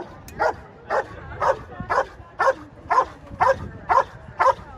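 Belgian Malinois barking at a decoy in a blind, steady and rhythmic at about two barks a second: the bark-and-hold guard of the French Ring search exercise.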